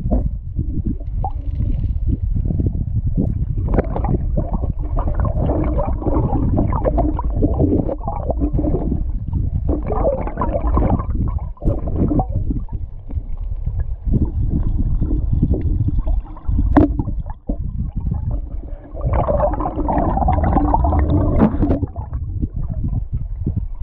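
River current rumbling and gurgling as heard through a submerged underwater camera, muffled and mostly low, with a few sharp knocks along the way.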